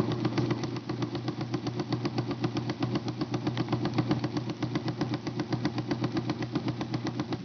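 IBM Selectric typewriter running under power: a steady motor hum with a rapid, even thumping several times a second from its cracked belt hub and pulley assembly.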